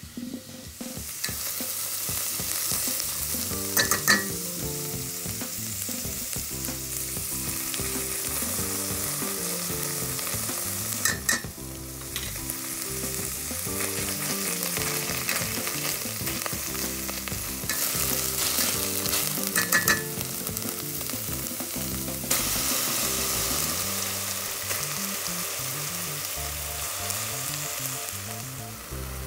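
Chopped onions and carrots frying in oil in a steel pot, sizzling steadily as they are stirred with tomato paste and chopped tomatoes. A few sharp knocks stand out, about 4, 11 and 20 seconds in.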